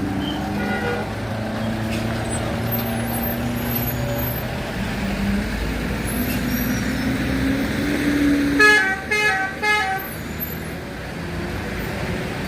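Heavy road traffic, with vehicle engines running steadily. About nine seconds in, a vehicle horn gives three short toots in quick succession, the loudest sound.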